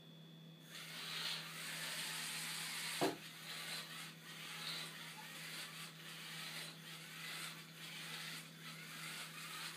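Small DC gear motors of a two-wheel robot car whirring as it drives across a hard floor, starting about a second in. A single sharp knock comes about three seconds in.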